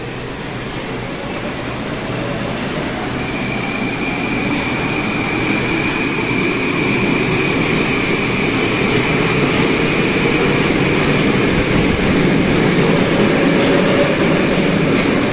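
Moscow metro train pulling away from the platform and accelerating. The traction motors give a whine that slowly rises in pitch over the rumble of the wheels, and the whole sound grows steadily louder.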